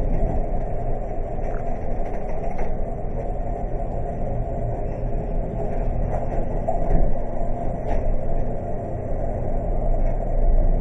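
Hotel passenger elevator car riding between floors: a steady low rumble and hum heard from inside the cab, with a few faint clicks.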